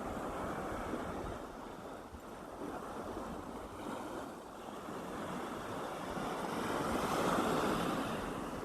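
Gentle sea waves washing onto the shore in a continuous hiss that swells and eases, with the largest swell near the end.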